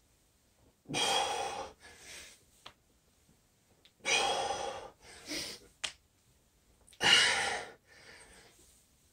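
A man breathing hard from exertion during squat-and-press repetitions: three loud, forceful breaths about three seconds apart, each followed by a softer one, in rhythm with the reps.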